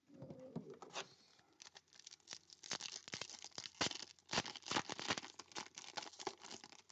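A foil trading-card pack wrapper of 2021 Select Footy Stars being torn open and crinkled by hand: a dense run of sharp crackles that grows louder after about two seconds.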